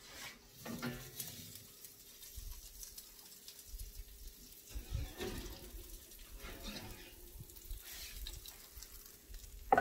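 Oven door opened and a metal baking sheet of hot roasted broccoli taken out and set down: scattered light clanks and knocks, with a faint sizzle from the hot oiled pan.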